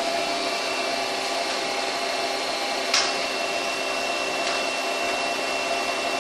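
Doosan CNC lathe running with a steady machine hum and a thin high whine, with one sharp click about three seconds in.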